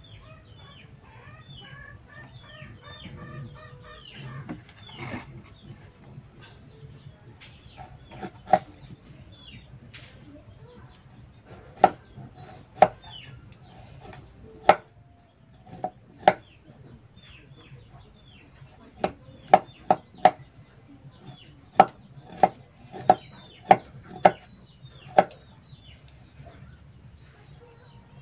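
Kitchen knife chopping ingredients on a banana leaf: irregular sharp chops, a dozen or so, coming mostly in the second half. Birds chirp in the background during the first few seconds.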